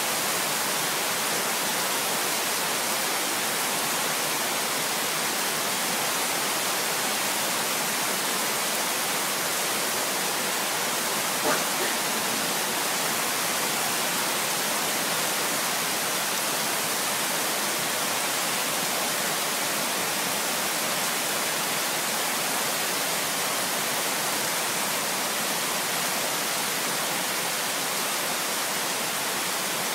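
Heavy rain pouring down steadily, a dense even hiss, with a single brief tap about a third of the way through.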